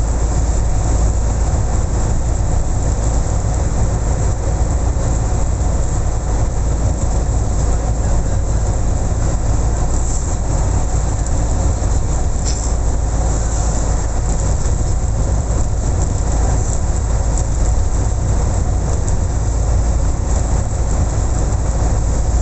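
Steady, loud rumbling noise of a moving vehicle.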